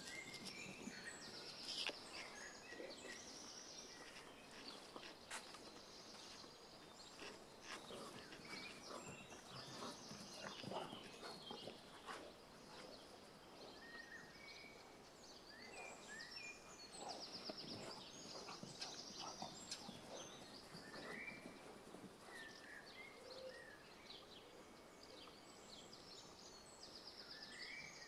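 Birds singing and calling throughout, with many short chirps and fast trills, over faint outdoor background noise. A few sharp soft knocks are scattered through it.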